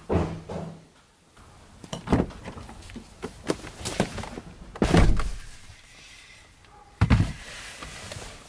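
Car door sounds: light clicks and knocks at the handle and latch, then the door shutting with a heavy thunk about five seconds in, and a second, lighter thunk about two seconds later.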